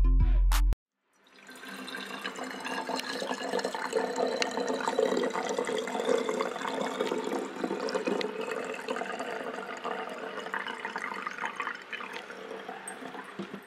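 Homemade fermented fruit wine pouring through a plastic funnel into a glass bottle, gurgling and splashing as the bottle fills with foaming liquid. The gurgling swells through the middle and tapers off toward the end.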